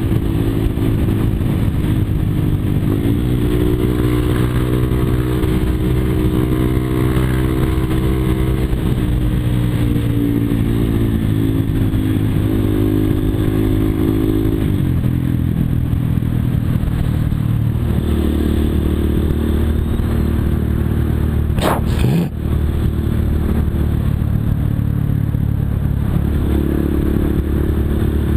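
Yamaha Fazer 250 single-cylinder engine with a Jeskap aftermarket exhaust running loudly, its note stepping up and down in pitch several times as engine speed changes. One sharp knock sounds a little past the middle.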